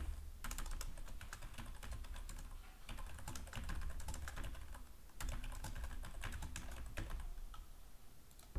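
Typing on a computer keyboard: quick key clicks in short runs with pauses as a few words are typed, ending about seven seconds in.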